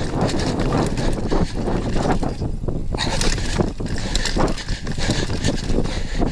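Downhill mountain bike ridden fast over a dirt forest trail: a steady rumble of knobby tyres on dirt with frequent rattles and knocks from the bike over bumps, and wind on the microphone.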